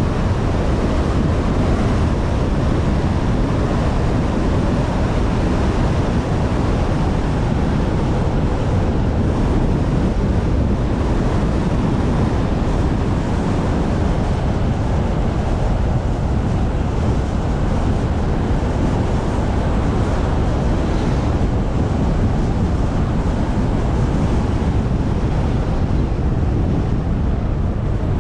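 Steady rush of wind buffeting the microphone, over the low road noise of a moving car.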